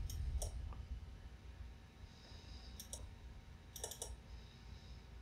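Computer mouse button clicking: a few single clicks in the first second, then quick double-clicks about three seconds in and again just before four seconds.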